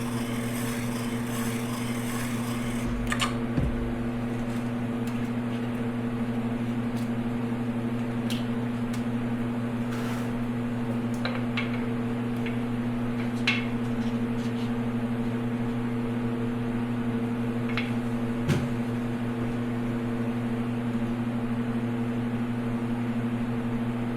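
Piston-ring gap grinder motor running with a steady hum while a custom piston ring's end is ground to file-fit its end gap. The grinding hiss lasts about the first three seconds, then a few scattered sharp clicks follow as the ring is handled.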